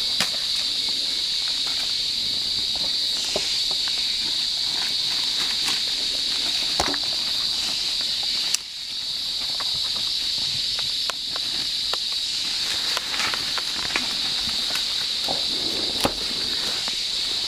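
Steady high-pitched drone of rainforest insects, with scattered crackles and snaps of dry leaf litter and twigs as a sun bear forages on the forest floor. The drone dips briefly about halfway through.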